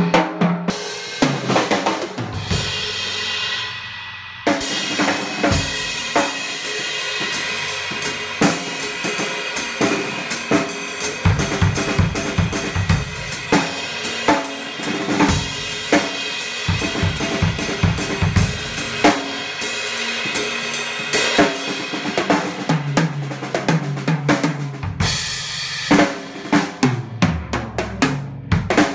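Mes acoustic drum kit played in a continuous groove of kick drum, snare, hi-hat and cymbals. A cymbal crash about a second in rings out for a few seconds. Later there are fills down the toms, falling in pitch, near the end.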